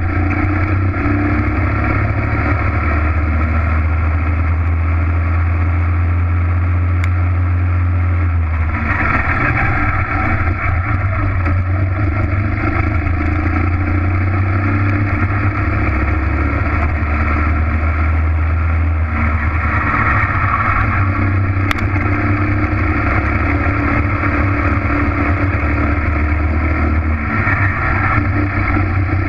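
Racing kart engine running hard under the onboard camera, its note shifting up and down several times as the kart slows for and powers out of corners.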